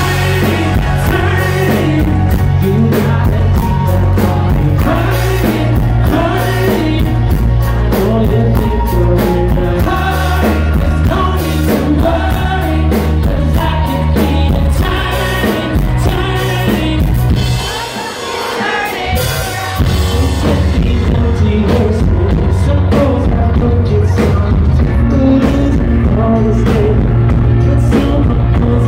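Live pop-rock band with a male lead singer, drums, bass and guitar, heard loud from the crowd. The bass and drums drop out for about two seconds about two-thirds of the way through, then come back in full.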